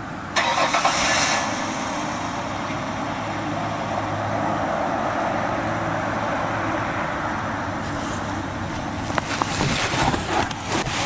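A start attempt on a 2012 BMW G 650 GS Sertao's single-cylinder engine. The starter engages suddenly about half a second in and the engine turns over steadily for several seconds, with sharp clicks and knocks near the end. The bike has a recurring hard-starting fault.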